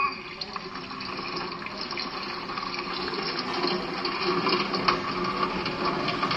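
Tap water running steadily into a sink, heard through laptop speakers.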